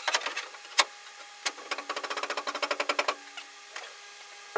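Light metallic clicks and knocks as a steel roll-cage tube is handled against the car: scattered taps, then a fast, even run of clicks for about a second and a half in the middle.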